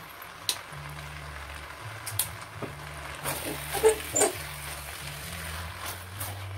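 Noodles being stir-fried in a nonstick wok: a silicone spatula scrapes and knocks against the pan, with a few short, sharp squeaks and clicks about four seconds in.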